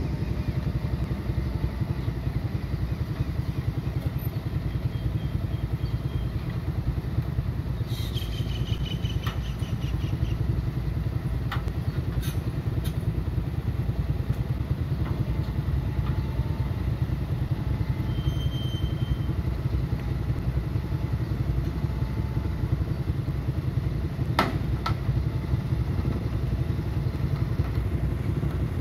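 Diesel engine of a Hitachi EX130 amphibious excavator running steadily, a low even rumble, with a few short sharp clicks or clanks now and then.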